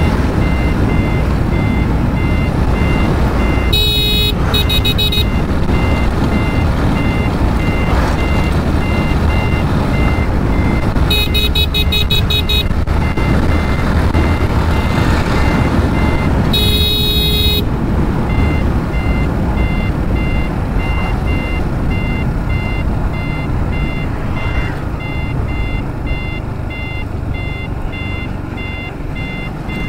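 Motorcycle riding at highway speed, with engine and wind rumble on the microphone and a rapid, evenly spaced electronic beeping. A vehicle horn blows three times, about 4, 11 and 16 seconds in, each for about a second.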